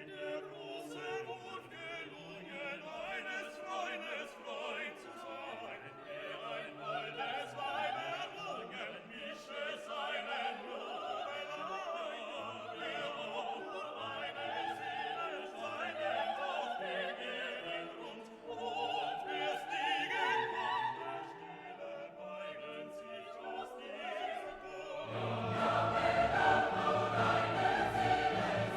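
Classical orchestral music with operatic choral singing, swelling louder and fuller near the end.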